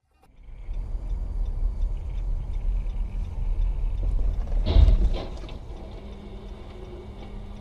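Dashcam recording from inside a moving car on a snowy road: steady low road and engine rumble, with a sharp bang and a second knock about five seconds in as a car ahead crashes into a truck. After the bang the rumble is quieter.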